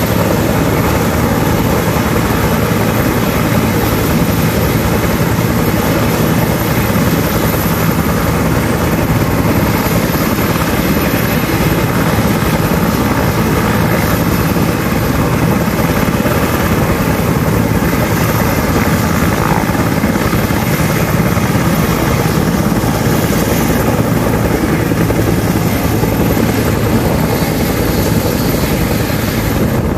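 Military helicopters, a UH-60 Black Hawk and a UH-1 Huey, running on the ground with rotors turning: a steady, loud turbine whine and rotor chop ahead of take-off.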